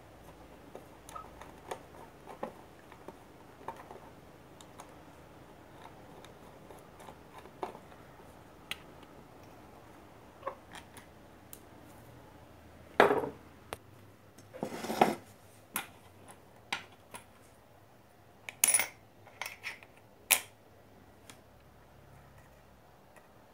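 Light metallic clicks and taps of a screwdriver and small tools working on a car audio amplifier's circuit board, with a few louder clinks and clatters in the second half.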